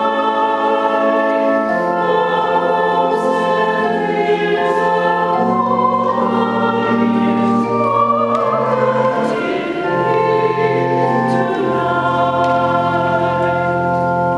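A choir singing to pipe organ accompaniment, in long held chords over steady organ bass notes; the music ends right at the close.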